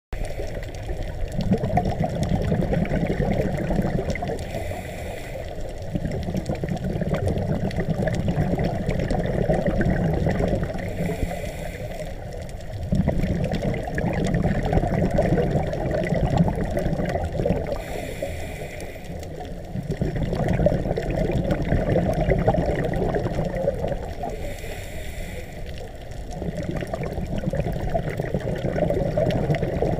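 A scuba diver breathing through a regulator underwater: a short hissing inhale about every six to seven seconds, each followed by a long stretch of bubbling exhaust as the diver breathes out.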